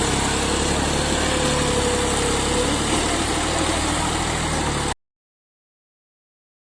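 Diesel engine of a JCB 3DX backhoe loader running steadily, then cut off abruptly to dead silence about five seconds in.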